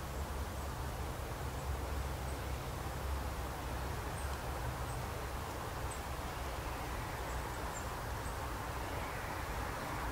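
Forest ambience: a steady rustling hiss over a low rumble, with scattered faint, short, high bird chirps.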